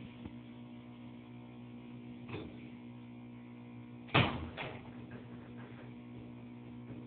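Elevator with a steady electrical hum; a faint knock just past two seconds, then a sharp clunk about four seconds in and a second, softer one half a second later.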